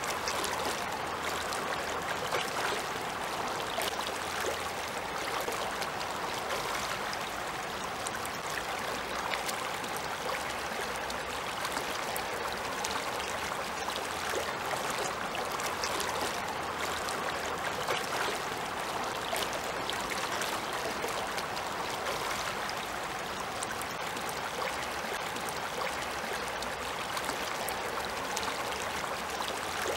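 Shallow river running over a stony bed, a steady, even rush of water.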